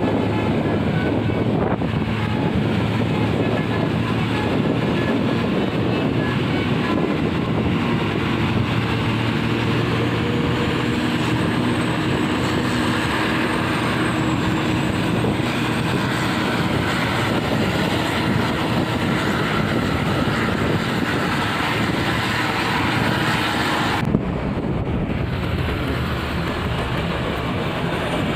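Steady heavy road-vehicle noise: a bus engine running at speed with tyre and road rush. The sound shifts abruptly about 24 seconds in.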